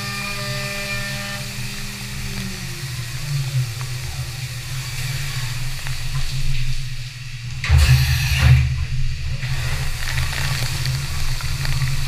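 CNC vertical machining center milling an aluminum boxway bar under flood coolant: a steady machine hum with the hiss of coolant spray, and a louder rushing burst for about a second and a half about eight seconds in.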